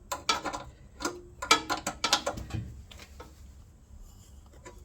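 Light metallic clicks and taps from a nut being fitted to hold a fuel tank on a small engine: a quick, irregular run of sharp ticks over the first three seconds, then only a few faint ones.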